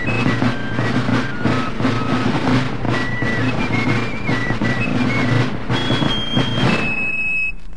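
Fifes and drums of a marching company playing a march: a high, stepping fife melody over steady drumming. The music breaks off abruptly near the end.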